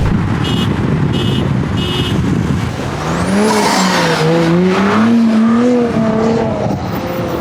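A car engine revving up and down under a loud rushing noise of driving. Three short buzzy chirps come in the first two seconds.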